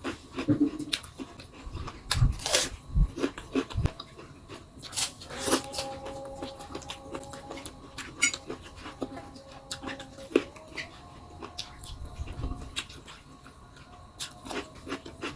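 Close-up chewing and crunching of raw vegetables (water spinach and raw garlic), with irregular sharp crunches and clicks. From about five seconds in, a thin steady whine sounds in the background.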